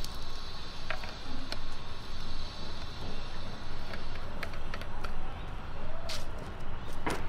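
Outdoor background noise: a steady low rumble with a few scattered clicks and brief chirps.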